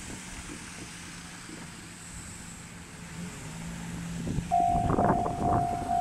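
Railway level crossing warning bell starting to ring about four and a half seconds in, an electronic tone repeating about twice a second, signalling that a train is approaching. Before it there is a low steady hum, and a few low thumps come as the bell starts.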